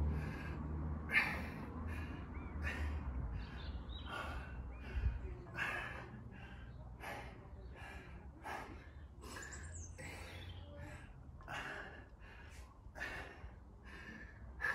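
A man breathing hard during a set of barbell bent-over rows: a forceful breath with each rep, in an even rhythm less than a second apart. A brief low thump about five seconds in.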